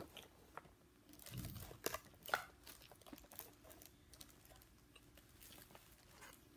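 Quiet eating sounds: crispy fried chicken being chewed and pulled apart by hand, scattered small crackles and clicks. A dull thump comes about a second and a half in, followed by two sharp clicks.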